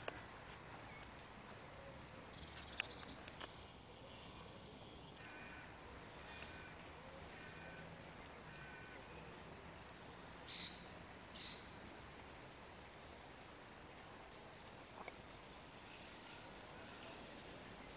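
Two short, harsh crow calls about a second apart near the middle, over faint, high chirps of small birds that recur throughout.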